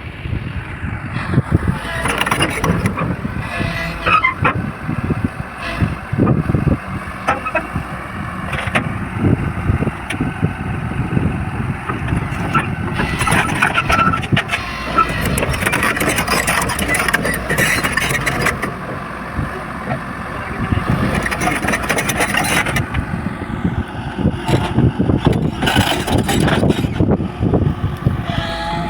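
Heavy construction machinery running: the diesel engines of an excavator and trucks, with repeated knocks and rattles that are heaviest about halfway through and again near the end.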